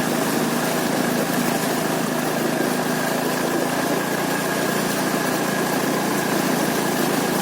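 Hero Honda Joy's small engine idling steadily.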